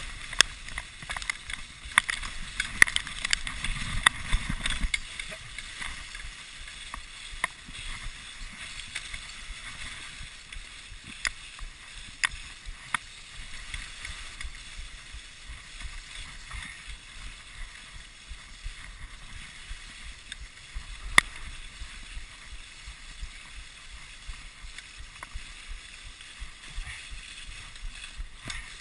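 Dog sled runners sliding over snow with a steady hiss, broken by frequent sharp clicks and knocks from the rattling sled. A low rumble comes in about two seconds in and fades by about five seconds.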